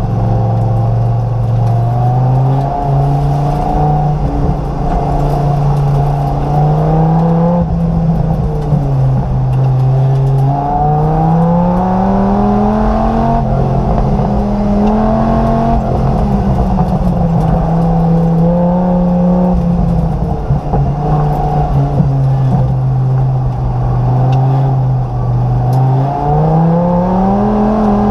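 Dodge Viper GTS race car's V10 engine heard from inside the cabin, revving up under acceleration and dropping back off the throttle again and again, its pitch climbing and falling every few seconds.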